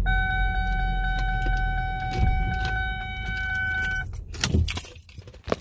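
A steady electronic warning tone from the Lincoln LS's dashboard sounds for about four seconds and then cuts off, with the key ring clicking and jangling. The engine's low idle rumble dies away about four and a half seconds in as it is switched off, followed by a few louder key clicks.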